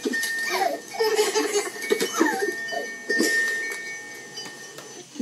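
High-pitched giggles and squeals from a young child: several short, falling cries, with a thin steady high tone running under the first half.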